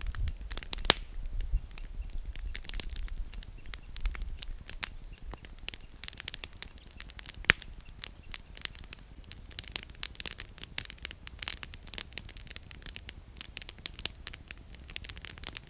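Campfire of firewood crackling, a steady run of irregular snaps and pops, with two sharper pops standing out, about a second in and about halfway through.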